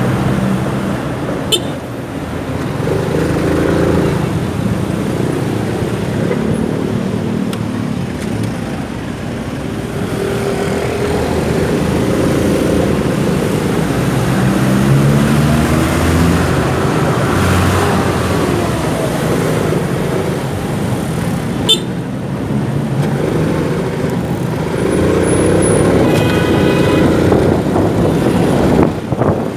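Motorcycle engine running while riding in city traffic, its pitch rising and falling with speed, over road and wind noise. A vehicle horn sounds briefly near the end.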